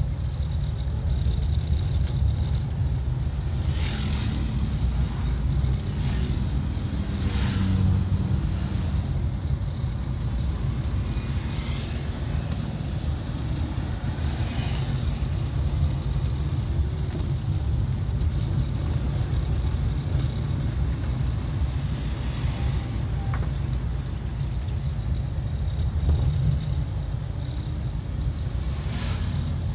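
Suzuki Carry 1000's small four-cylinder engine running steadily on the move, heard from inside the cab as a constant low rumble mixed with road noise. A few short hissing swells rise over it now and then.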